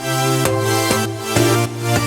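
Background music: an electronic track with a steady beat and sustained chords.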